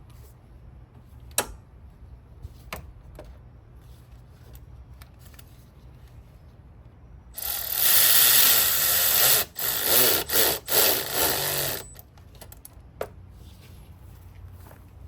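Power tool run for about four seconds, stopping and restarting a few times, as screws are run in on the reassembled intake. A few sharp clicks and knocks of tools being handled come before it.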